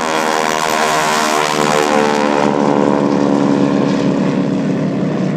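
North American T-6 Texans' nine-cylinder Pratt & Whitney R-1340 radial engines running at climb power as the aircraft fly low overhead. The sound is a loud, steady propeller drone, with the pitch of several engines sliding against one another in the first couple of seconds as they pass.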